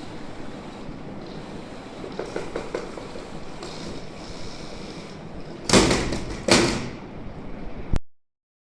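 Robot vacuum making a steady running noise, then two loud crashes about two-thirds of a second apart as it falls down stairs; the sound cuts off abruptly soon after.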